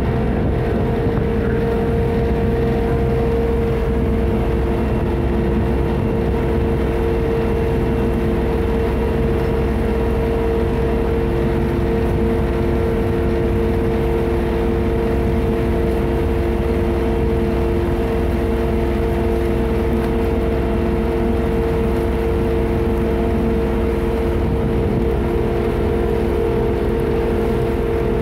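Friendship boat's engine running steadily while under way: an even drone with a strong, unchanging hum.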